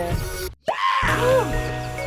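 Background music with sustained notes, cutting out abruptly for a moment about half a second in.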